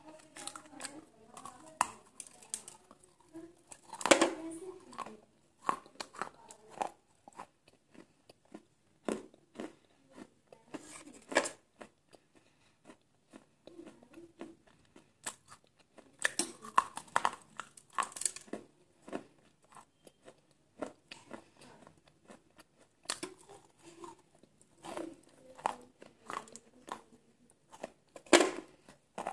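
Hard pieces of baked clay diya being bitten and chewed close to the microphone: a sharp crunching bite every few seconds, with quieter chewing between.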